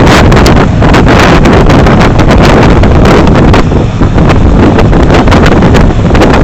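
Heavy wind buffeting on the microphone of a camera riding on a moving motorcycle, very loud and fluttering, over the steady noise of motorcycle engines and tyres on the road.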